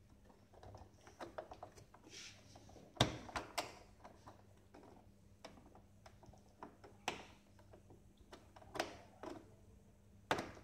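Scattered plastic clicks and knocks as a plastic trim piece is pressed and worked into place on the casing of a Saeco Incanto coffee machine, the sharpest knocks about three seconds in and near the end.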